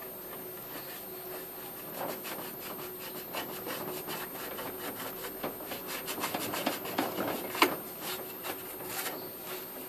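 Cloth rag rubbing over the gritty, rust-dusted painted metal top of an old electric hot plate: a dry scratchy rubbing full of small clicks and scrapes. It picks up about two seconds in, with one sharper click late on.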